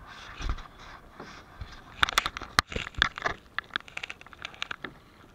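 Kayak paddling: the paddle splashes and water drips around the boat. A dense run of sharp, crackling clicks starts about two seconds in.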